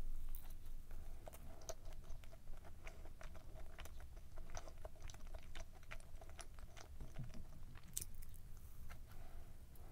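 A person chewing a soft sponge muffin with cream filling up close: a bite, then steady chewing with many small, sharp mouth clicks.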